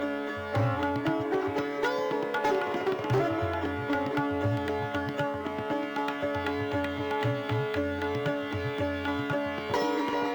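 Instrumental background music: plucked string melody over a repeating low drum beat.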